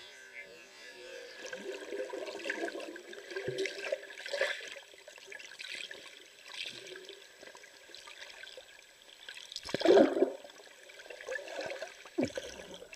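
Water swishing and gurgling, recorded underwater through a camera's waterproof housing, with a louder gush about ten seconds in.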